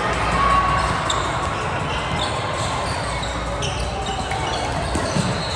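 A basketball bouncing on a gym floor during play, with brief squeaks and the steady hubbub of spectators' voices echoing in a large hall.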